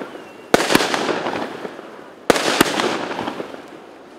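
Fireworks shells bursting in the sky: two pairs of sharp bangs, about half a second in and again a little past two seconds. Each pair is followed by a crackling hiss that slowly fades.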